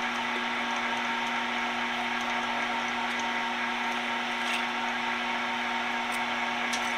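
1440K metal lathe running steadily with a constant hum while a tailstock drill bores into stainless steel, throwing long stringy chips. A few light clicks come in the second half.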